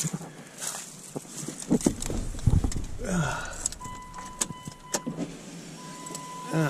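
A pickup truck's door opening and a person climbing into the cab with thumps and rustling, then, about four seconds in, a steady high electronic warning tone from the dashboard, broken off briefly and starting again, with a few sharp clicks as the key is worked in the ignition.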